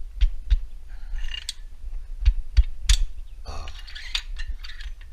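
Hi-Lift jack's lever and climbing pins clicking and clanking in irregular metallic knocks as the jack is worked, with short scraping sounds between the clicks. The pins, which had been sticking, are moving again after being sprayed with lubricant.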